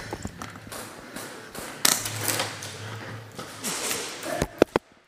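Airsoft gunfire in an indoor arena: a loud sharp crack about two seconds in, and two quick cracks near the end, over a steady background hiss.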